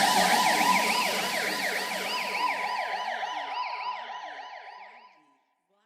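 Electronic police-siren effect in a DJ sound-check track, warbling fast up and down about three times a second over a steady tone. It fades away and stops about five seconds in.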